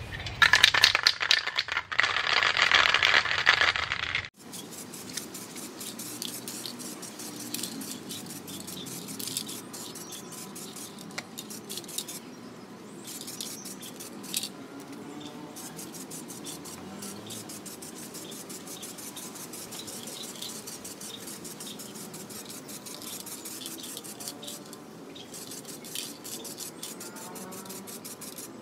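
Aerosol spray can of clear coat shaken hard for about four seconds, its mixing ball rattling loudly. After an abrupt cut, a quieter steady hiss of the clear coat being sprayed onto a motorcycle wheel.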